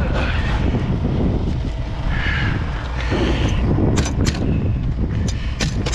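Pneumatic nail gun firing several sharp shots in quick succession, starting about four seconds in, as it nails a wooden block into place. Wind rumbles steadily on the microphone throughout.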